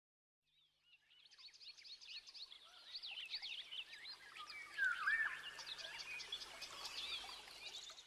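Faint chorus of bird calls: many quick chirps and swooping whistles, fading in after about a second and a half, with one louder falling whistle about five seconds in.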